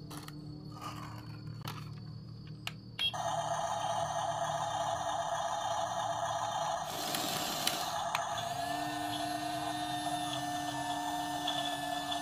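RC toy bulldozer running: its small electric drive motors and gearboxes start a steady whine suddenly about three seconds in, after a few handling clicks, and the pitch shifts about eight and a half seconds in as it turns. A short scraping rasp comes a second or so before that. The drive that would not move now works.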